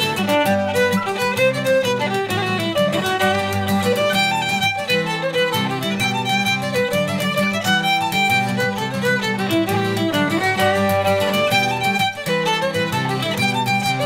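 Fiddle playing a lively Shetland traditional-style tune, accompanied by strummed acoustic guitar chords.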